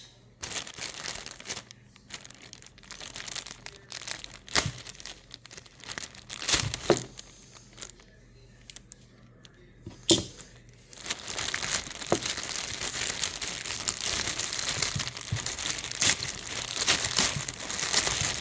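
A sealed plastic parts bag being handled and torn open: scattered rustles and sharp snaps for the first ten seconds or so, then continuous crinkling.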